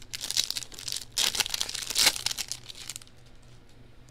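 Foil wrapper of a Topps baseball card pack being torn open and crumpled by hand: dense crinkling and crackling, loudest in the middle, dying away after about three seconds.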